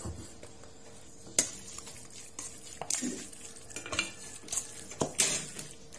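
Metal spoon stirring and folding minced raw buffalo meat and blood in a stainless steel bowl, with irregular clinks and scrapes against the bowl. The sharpest clinks come about a second and a half in and again about five seconds in.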